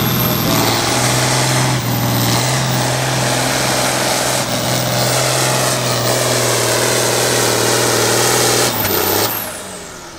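Diesel farm tractor engine running at full throttle under load while pulling a sled, steady with a high whine over it. About nine seconds in the throttle is cut, and the engine and whine drop away.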